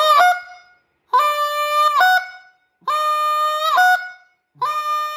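Goose call blown as a series of honks: the tail of one, then three more, each held steady for about a second and then breaking up into a short, higher note at the end as the reed cracks over.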